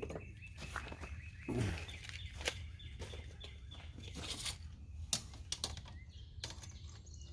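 Scattered light clicks and knocks from handling and measuring workpieces, over a steady low hum.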